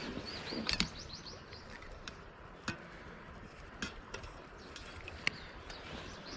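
Small birds chirping quietly outdoors, with a few sharp clicks spread through the stretch.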